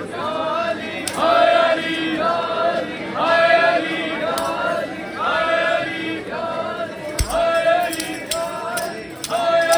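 A group of men chanting a short refrain together in a steady rhythm, about one call a second, as in a matam mourning chant. A few sharp knocks come near the end.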